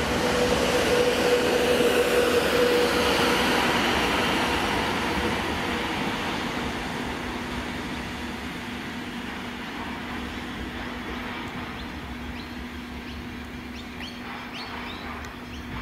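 Metro Trains Melbourne X'trapolis electric suburban train moving away along the platform. It is loudest in the first few seconds, with a brief whine, then fades steadily as it recedes.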